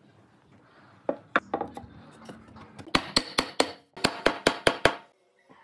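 A series of sharp knocks: a few spaced ones, then two quick runs of four and five at about five a second.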